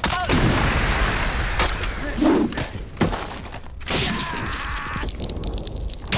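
Film battle sound effects: a shell explosion bursts at the start and its blast and falling debris die away over a second or so, followed by further impacts. Near the end a man lets out a drawn-out yell.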